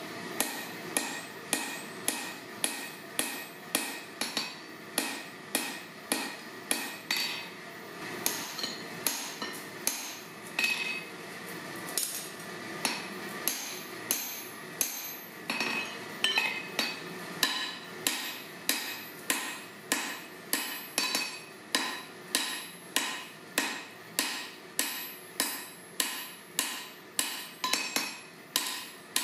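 Hand hammer blows on red-hot steel at a blacksmith's anvil, shaping a claw hammer head from forklift-tine steel, partly struck onto handled forging tools held on the hot piece. The blows come at a steady rhythm of about three every two seconds, each with a short metallic ring.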